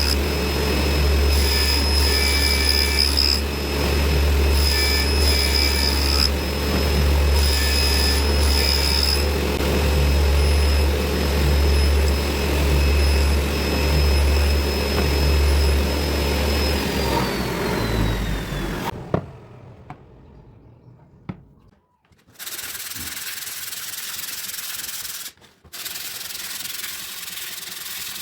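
Table saw motor running with a steady hum and high whine, with several short louder stretches. About 17 seconds in it is switched off and winds down with a falling whine. After a short lull, a steady rubbing hiss starts, broken briefly twice.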